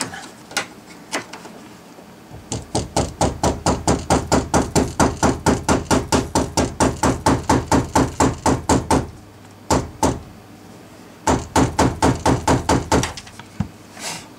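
A hammer tapping on a screwdriver held against the fuel pump module's lock ring, driving the ring round into its locked position on the fuel tank. A fast run of taps, about five a second, lasts six or seven seconds. A pause follows with a couple of single taps, then another short run.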